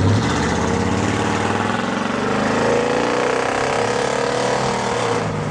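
A motor vehicle's engine running steadily, its pitch rising slowly over the first few seconds and then holding.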